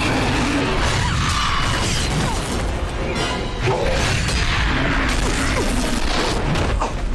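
Dramatic action-scene music mixed with fight sound effects: crashes and impacts, with a sharp hit about three seconds in and another near the end.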